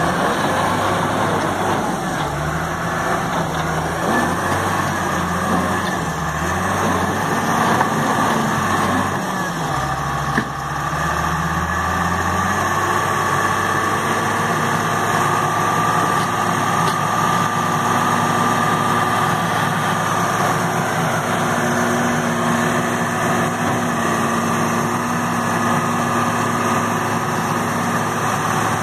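John Deere 700H LGP crawler dozer's diesel engine running. Its pitch rises and falls for about the first twelve seconds, then it settles into a steady idle.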